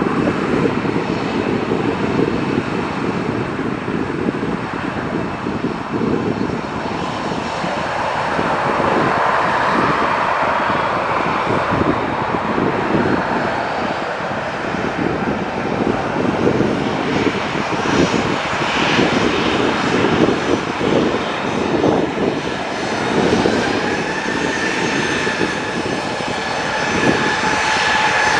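Boeing 737-700's CFM56-7B jet engines running at low taxi power as the airliner turns and taxis: a steady jet rumble, with a whine coming in about two-thirds through and starting to rise near the end.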